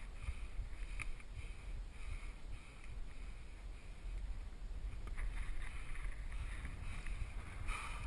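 Wind buffeting the camera microphone in a low, fluttering rumble, over a faint high hiss that pulses about twice a second. A couple of brief knocks come through, one about a second in and one near the end.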